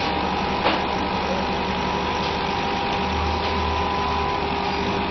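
CO2 laser engraving machine with a rotary attachment running: a steady mechanical hum with several steady tones, and a single short click about two-thirds of a second in.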